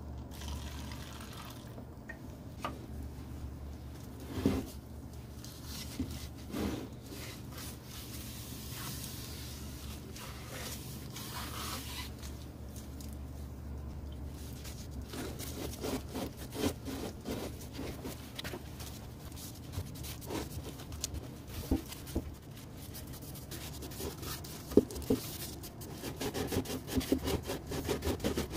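Urethane wood hardener poured from a can into a paper cup, then a cloth soaked in it rubbed and wiped over a turned wooden vase: soft rubbing and rustling with a few light knocks, busier in the second half, over a low steady hum.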